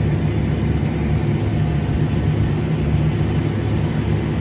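Tractor engine running steadily under load while pulling an air seeding drill through mud, a low, even drone heard from inside the cab.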